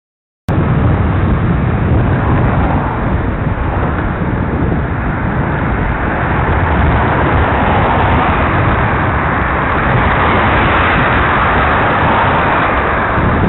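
Steady wind noise on a bicycle-mounted camera's microphone while riding along a road, mixed with traffic noise. It starts suddenly about half a second in.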